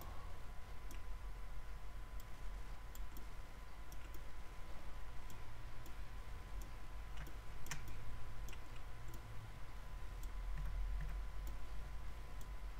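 Scattered, irregular clicks of a computer mouse and keyboard over a faint steady hum, with one louder click a little past the middle.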